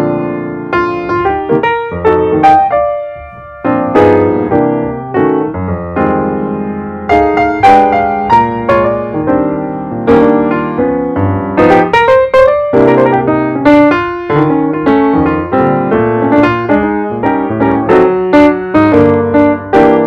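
Background piano music: a continuous run of struck notes and chords.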